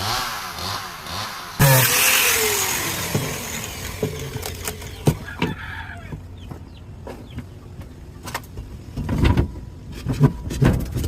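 Angle grinder, which runs with a chainsaw-like sound, winding down after switch-off. About a second and a half in it is briefly switched on again and coasts down with a falling whine, followed by scattered clicks and knocks.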